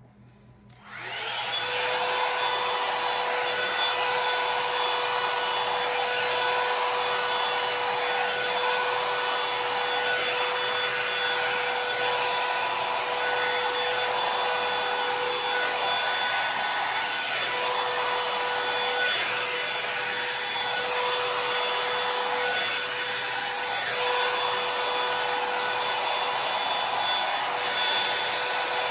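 Revlon One-Step Hair Dryer and Volumizer hot air brush switched on about a second in, then blowing steadily: a loud rush of air with a steady motor whine.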